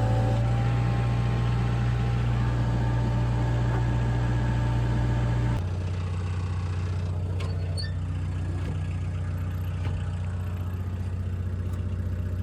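Diesel engine of a farm utility machine running at raised throttle, then throttled back to a lower, steady run about five and a half seconds in.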